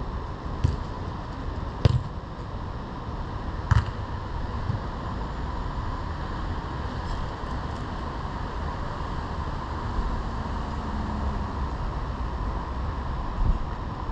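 A football being kicked: a few sharp thuds in the first four seconds, the loudest about two seconds in, over a steady outdoor rumble.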